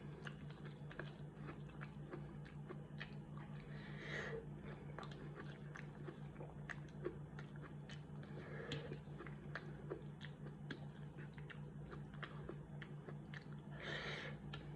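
Close-up chewing and biting of mac and cheese in onion cups, with many small wet mouth clicks and a few soft bursts. A low steady hum runs underneath.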